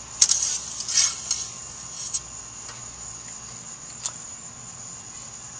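Engine-bay dipstick being drawn out of its tube, giving a few sharp metal clicks and scrapes, the loudest a quarter second in and smaller ones around one, two and four seconds. A steady high chirring of crickets runs underneath.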